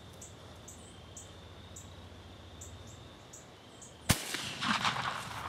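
Insects chirping in a regular rhythm, then a single sharp, loud muzzleloader shot about four seconds in, followed by a ragged, noisy tail lasting more than a second.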